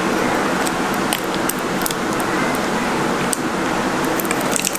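Steady background hum, with faint scattered clicks and ticks from hands loading film into a Cosina CT1 Super 35mm film camera.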